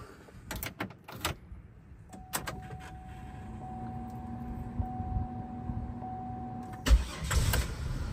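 Ignition key clicks, then a steady faint electrical whine with the key on. About seven seconds in, the 2002 Chevy Impala's 3.8-litre 3800 V6 cranks and starts with a sharp thump and settles into a steady idle.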